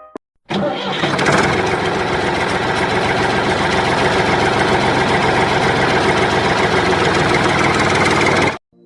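An engine running steadily with rapid, even firing; it cuts in suddenly about half a second in and cuts off suddenly near the end.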